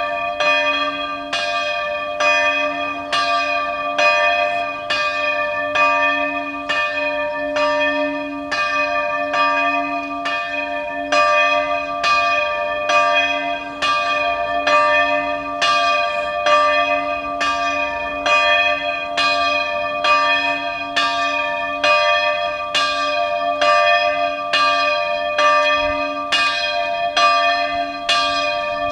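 Several church bells swinging and ringing together in a full peal: a steady stream of overlapping strikes, about one or two a second, each tone ringing on into the next.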